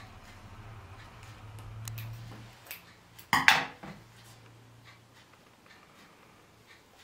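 A brief cluster of sharp clinks of hard objects on crockery, about three and a half seconds in, over a faint low hum.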